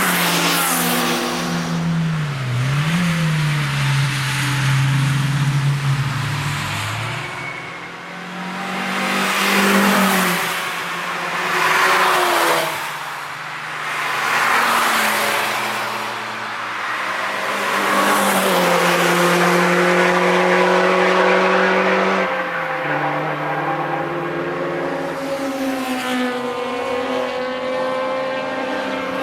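Cars driving hard on a race track, one after another: engines revving up and dropping back through gear changes, with rushing pass-bys about ten, twelve and fifteen seconds in.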